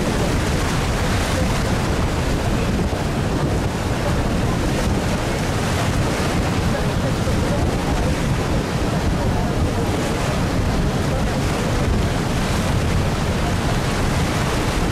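Steady rush of wind on the microphone and water washing along a moving boat on a lake, with a constant low rumble underneath.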